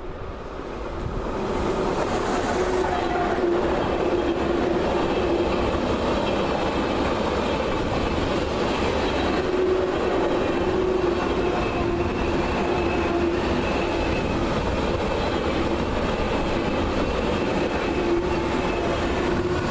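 A train passing through a station. The running noise builds over the first two seconds and then holds steady, with a steady low tone under it.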